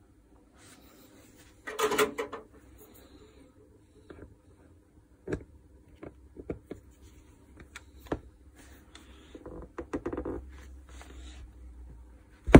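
Metal angle-grinder parts (armature and gear housing) handled by hand on a hard bench: a clattering rattle about two seconds in, then scattered clicks and knocks, a short scraping stretch near ten seconds, and a sharp knock at the end.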